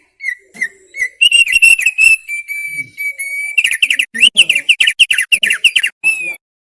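Thick-billed heleia (opior paruh tebal) singing: a few separate whistled notes, then a fast run of slurred, chirping notes from about halfway in, ending on a single note after a short pause.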